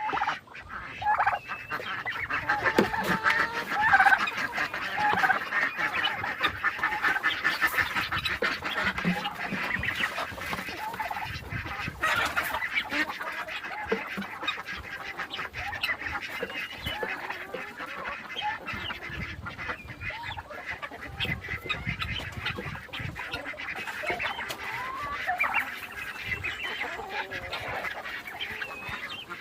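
A mixed flock of farmyard poultry calling all at once: many overlapping honks and clucks.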